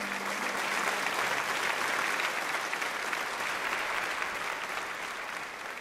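Audience applauding, a steady clatter of many hands that dies down near the end.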